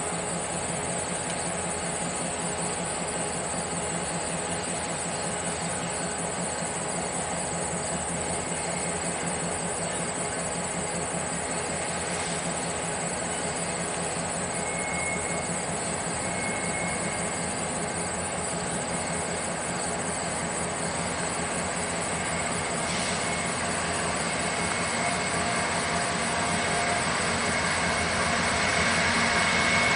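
Diesel locomotives leading a double-stack freight train, approaching: a steady rumble of engines and wheels that grows slowly louder, with a thin high squeal coming and going in the second half.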